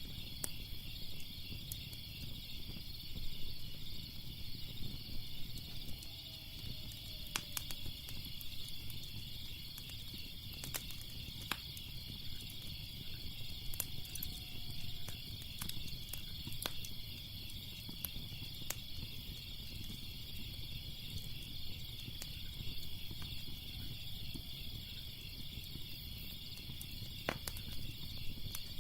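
Crackling fire, with scattered sharp pops and snaps, over a steady chorus of crickets chirping and a low rumble underneath.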